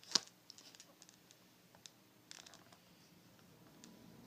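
A Mora Classic knife cutting into the hatchet's packaging: a sharp click just after the start, then scattered small ticks and a short scraping cut a little over two seconds in.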